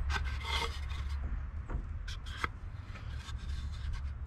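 Rag rubbing over a glued wooden joint in several short scuffing strokes, wiping away excess wet glue, over a steady low hum.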